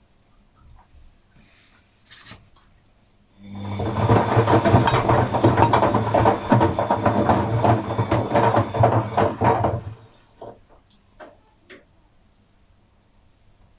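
Atlant 50U101 washing machine running mid-cycle: a steady low hum with dense rattling starts about three seconds in, runs for about six seconds, then stops abruptly.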